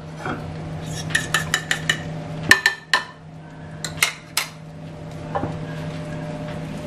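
A metal spoon clinking against a ceramic bowl of beaten eggs and the pan. It makes a string of sharp clinks, a few of them louder near the middle, over a low steady hum.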